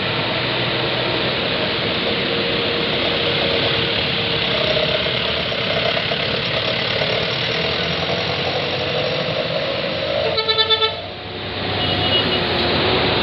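Steady noise of heavy road traffic and a passing bus, with a quick run of rapid, stuttering horn toots on one pitch about ten seconds in, from a bus's telolet-style air horn.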